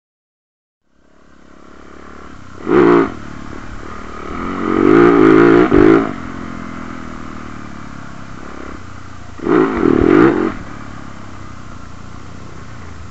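Dirt bike engine running up close as the bike rides a dirt trail, with three loud bursts of throttle: about three seconds in, a longer one around five seconds, and one near ten seconds.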